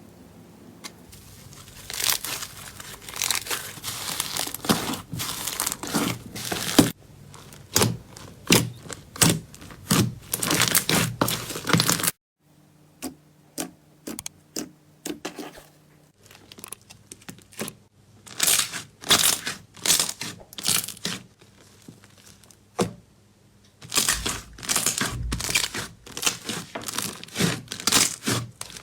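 Slime being squeezed and pressed by hand: a run of short, sharp crunchy and crackling squishes. The sound breaks off abruptly several times where one clip changes to the next.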